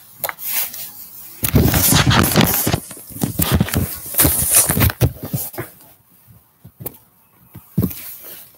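Handling noise on the recording device's microphone as it is picked up and moved: a dense run of rubbing, scraping and knocking for a few seconds, then a few scattered knocks.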